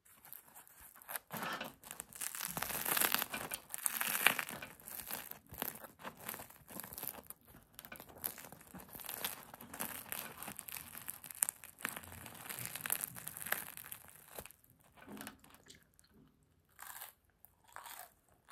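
Crisp crust of a bagel-style loaf being squeezed and torn apart by hand, with dense crackling and crunching that thins to scattered crackles near the end.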